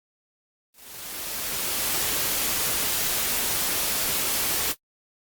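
Static-like white-noise hiss used as a sound effect: it fades in over about a second, holds steady and loud, then cuts off suddenly.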